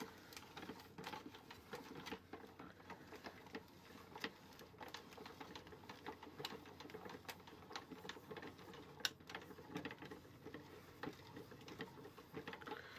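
Hand crank of a 1993 Mattel McDonald's Happy Meal Hamburger Snack Maker being turned, its plastic mixing paddle and works giving faint, irregular clicks and rattles as they stir a thick peanut-butter mixture.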